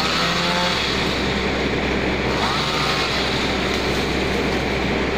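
Engine-driven machine, the one being tried out for cutting fruit, running steadily with a constant low hum. Short rising-and-falling calls sound over it at the start and again about two and a half seconds in.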